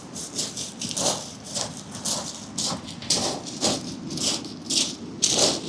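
Walking footsteps crunching on the beach, about two steps a second, over the steady rumble of a rough sea.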